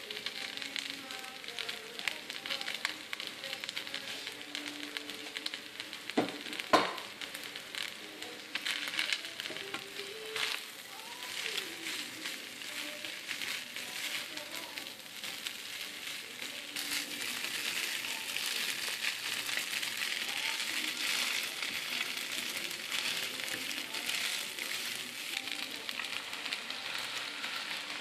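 Rice noodles, egg and tofu sizzling in a hot frying pan as they are stirred and tossed with a wooden spatula, with small clicks and scrapes of the spatula against the pan. There is one sharp knock about six and a half seconds in, and the sizzle grows louder a little past halfway.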